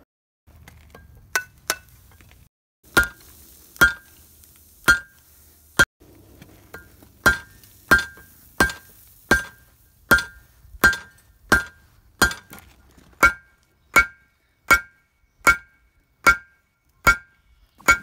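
Hand hammer striking a glowing steel billet on an anvil: about twenty blows, a few scattered at first, then steady at roughly one every three-quarters of a second, each with a bright ring from the anvil.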